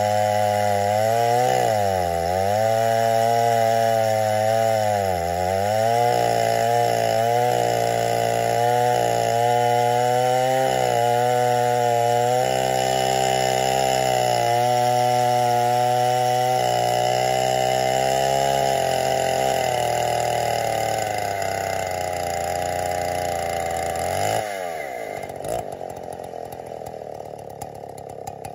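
Two-stroke chainsaw mounted in an Alaskan chainsaw mill ripping lengthwise through an oak round at full throttle. Its pitch sags and recovers several times as the cut loads the engine, then holds steady. Near the end the engine note falls sharply as the throttle is let off and the sound drops away.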